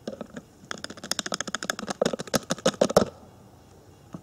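Rapid tapping on a small container, about eight knocks a second for a couple of seconds, knocking the last of the bright flake aluminum powder out into a plastic bag.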